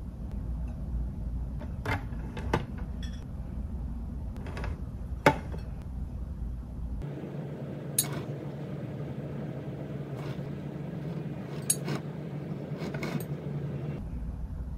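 Scattered clinks and taps of kitchen utensils and dishes being handled, about half a dozen sharp knocks over a steady low room hum.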